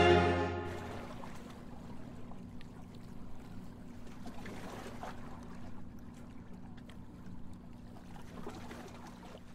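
Orchestral music fades out in the first second, leaving faint water sounds over a low steady hum.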